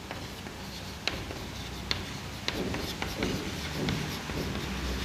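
Chalk writing on a chalkboard: a few sharp taps as the chalk strikes the board, with short scratchy strokes between them.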